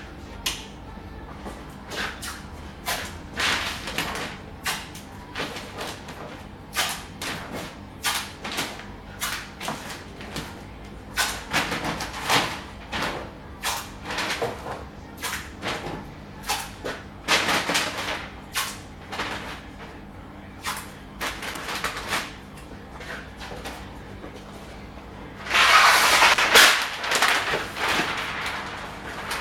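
Brown masking paper crinkling and rustling, with masking tape being handled, as the paper is laid and taped over a car bumper: irregular short crackles throughout, and a louder, longer burst of rustling near the end as a sheet is unfolded.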